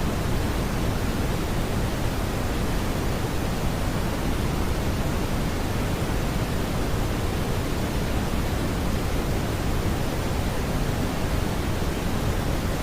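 Steady smoothed brown noise: an even, unchanging rumbling hiss weighted toward the low end, with no tones or beats.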